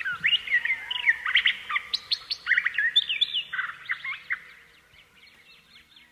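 Many small birds chirping and twittering in a dense, overlapping chorus of short rising and falling chirps. The chorus thins and fades from about four seconds in.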